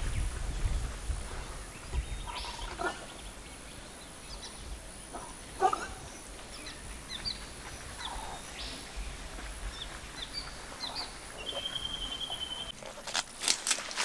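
Scattered short animal calls and chirps over faint wind, with one held whistle near the end, followed by a few sharp clicks.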